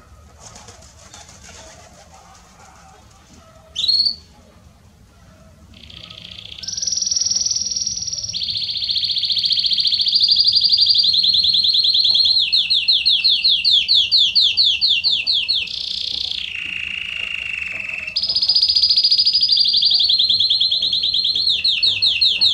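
Domestic canary singing. A single short chirp comes about four seconds in, then from about six seconds a long, loud, unbroken song of high rolling trills and rapid repeated notes, dropping to one lower trill a little past the middle.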